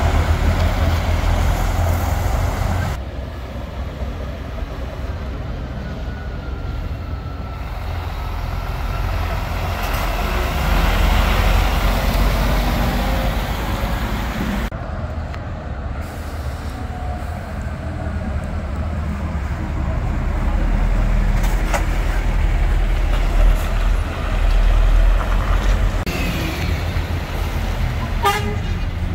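Diesel engines of articulated lorries pulling semi-trailers, driving slowly past one after another. The low engine sound swells and fades as each truck passes.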